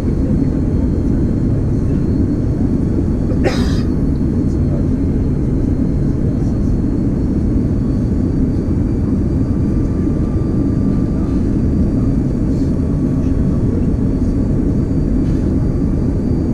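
Steady low rush of an Airbus A330-200's engines and airflow heard inside the passenger cabin during the approach descent. A brief sharp noise cuts in about three and a half seconds in.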